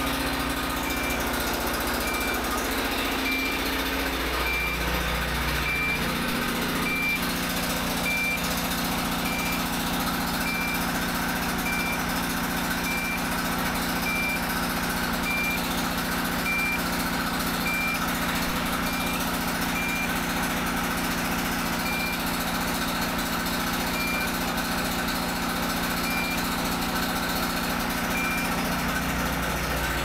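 Portable generator engine running steadily, with a handheld CT-580 carbon monoxide meter sounding its alarm: a short high beep about once a second, slowing to about one every two seconds in the second half. The alarm signals a dangerous carbon monoxide level from the generator's exhaust.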